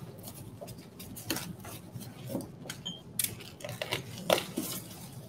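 Clear plastic packaging wrap rustling and crinkling as ceramic tea bowls are unwrapped, mixed with sharp clicks and knocks of the bowls being handled; the loudest click comes a little after four seconds in.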